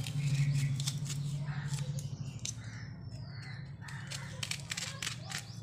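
A kitchen knife cutting into and peeling the tough rind of a pomegranate, with scraping and short crisp clicks, over a low steady hum. A bird calls in the background.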